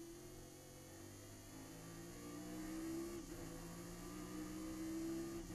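Chevrolet Nova race car's V8 engine under full throttle, heard from inside the cockpit. Its pitch climbs steadily through a gear, drops with a quick upshift about three seconds in, climbs again and drops with another upshift near the end.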